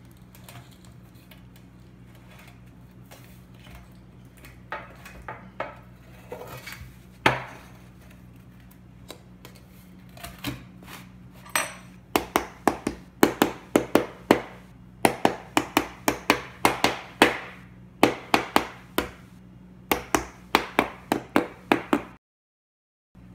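Metal spoon tapping the back of an upturned plastic ice cube tray mould on a metal baking sheet, to loosen the bath bombs inside. A few scattered knocks and rustles come first, with one sharper knock. About halfway in, runs of quick sharp taps begin, roughly three a second with short pauses between them. They stop abruptly near the end.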